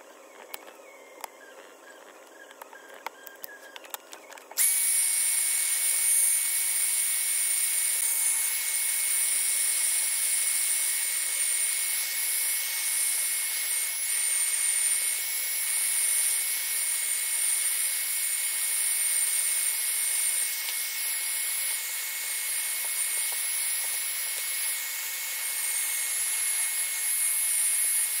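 A few light clicks and scrapes of a utility knife prying at the edge of a laptop's aluminium base. Then, about four and a half seconds in, a handheld hair dryer switches on suddenly and runs steadily with a high whine, heating the base so that the glue under the cover loosens.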